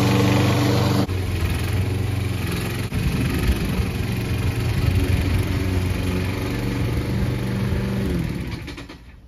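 Craftsman walk-behind lawn mower with a 6.5 hp Briggs & Stratton four-stroke engine running steadily while mowing, a loud buzzing that gets quieter about a second in. About a second before the end the engine is shut off and winds down, its pitch falling as it dies away.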